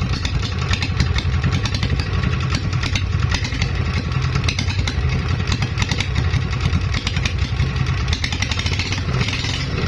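R170A single-cylinder diesel engine running steadily, firing evenly with no misfire: its earlier misfire and white smoke have cleared.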